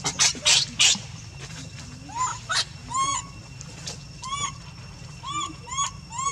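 Baby monkey giving about six short, high, squeaky whimpers, each rising and falling in pitch, starting about two seconds in. A few sharp clicks come near the start.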